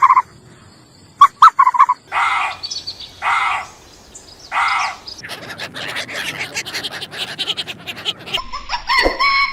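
A series of animal calls, likely birds: a few short notes, then three longer calls about a second apart, then a different run of quick repeated calls near the end.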